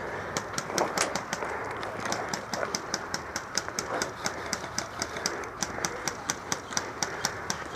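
A player running in airsoft gear: quick, even clicks and rattles about five or six a second over the rustle of movement.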